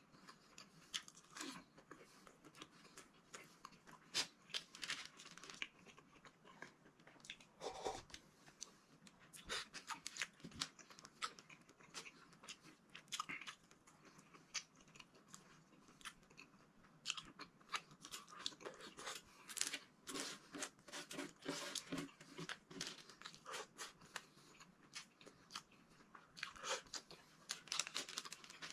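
A person chewing cooked okra and eggplant close to the microphone: irregular short crunchy clicks and mouth sounds, busier in the second half.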